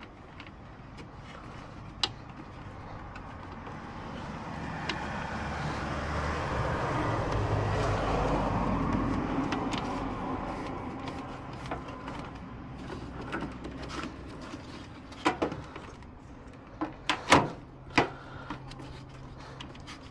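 A road vehicle passing, its sound swelling for several seconds and then fading. Near the end come a few sharp clicks and knocks as cables and pipe insulation are handled at the outdoor unit.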